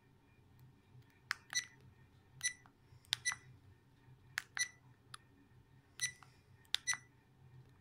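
FITFORT 4K action camera giving short, high key-tone beeps as its settings menu is pressed through, about a dozen in all, many in quick pairs.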